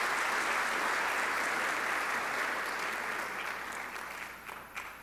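Audience applauding, a dense even clapping that dies away over the last second and a half, with a few last single claps.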